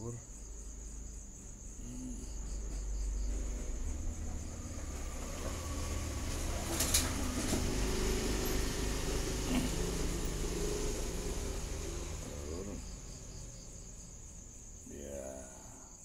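Night-time crickets chirring steadily, with a low rumble and rustling noise that swells through the middle and a single sharp click about seven seconds in.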